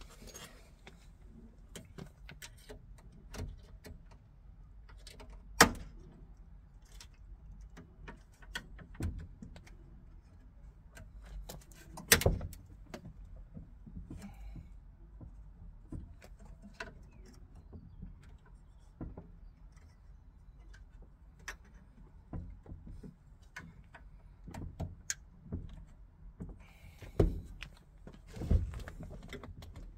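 Scattered clicks, taps and knocks of a new window frame trim being handled and pressed into place on a Fiat 126 door window. Sharper knocks stand out about five and twelve seconds in and twice near the end.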